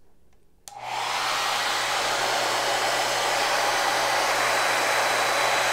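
Handheld hair dryer clicked on about a second in, then running steadily: a rush of air with a low hum underneath, blowing into a paper tube.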